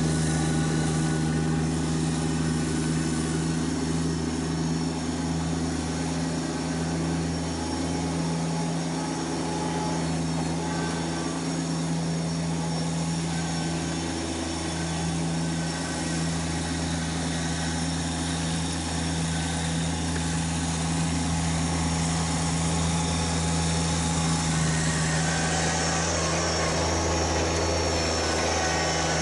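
Kubota BX1870 compact tractor's three-cylinder diesel engine running as a steady drone at an unchanging pitch, its level dipping slightly partway through.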